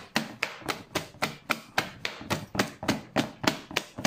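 Thick cake batter being beaten by hand in a plastic bowl, the whisk slapping through the batter and knocking the bowl in a steady rhythm of about four strokes a second.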